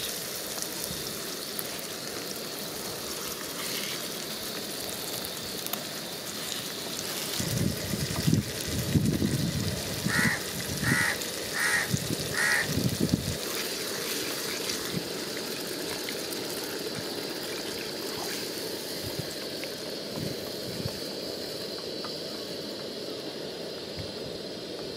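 Goat kidneys and offal cooking in masala in a pot over a gas stove, a steady sizzling hiss. Around the middle a crow caws four times in even succession, amid a few louder low thumps.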